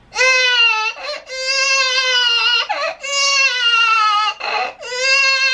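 A man imitating a baby crying through cupped hands: four long, high wails with short gasping breaths between them.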